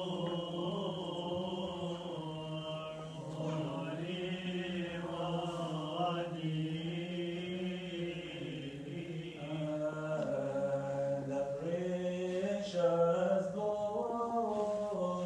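Coptic Orthodox liturgical chant sung by male voices: long held notes in a slow melody that glides gradually up and down in pitch.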